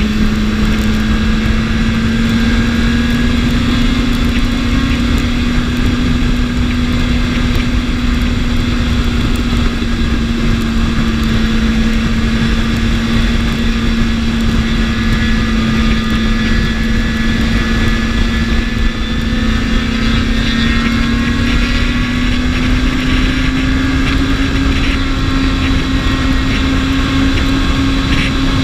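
BMW S1000RR's inline-four engine running at a steady cruising speed over a constant rushing noise, its pitch edging slightly higher about three quarters of the way through.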